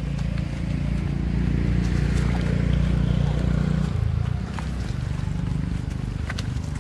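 A steady low rumble, loudest in the first half, with a few sharp crackles near the end.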